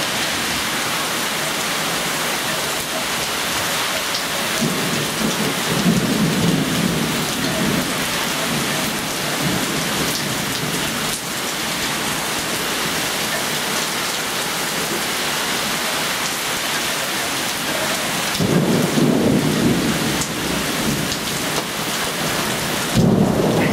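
Heavy thunderstorm downpour from a tropical storm, rain hissing steadily on the screen enclosure and foliage. Thunder rumbles about five seconds in and twice more near the end.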